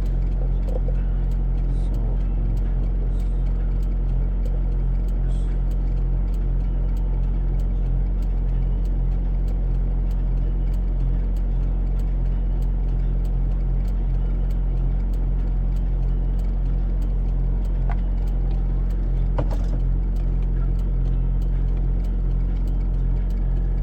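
Vehicle engine idling steadily, with faint regular ticks about two to three times a second.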